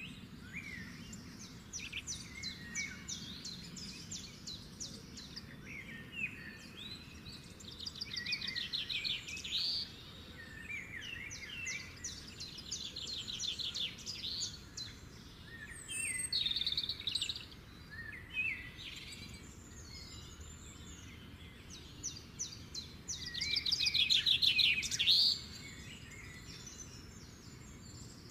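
Small birds chirping, with repeated high-pitched rapid trills and short gliding calls in bouts every few seconds over a faint steady background hiss.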